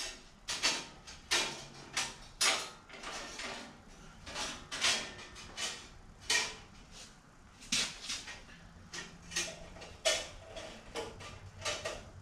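Steel bandsaw blade being handled onto the upper and lower wheels of a 14-inch bandsaw: irregular sharp clicks and knocks, roughly one a second, as the blade and hands strike the wheels and frame.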